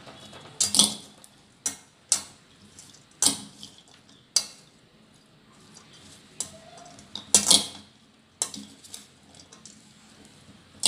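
A spoon stirring a salad of boiled peanuts and vegetables in a stainless steel bowl: irregular scrapes and sharp clinks of the spoon against the steel.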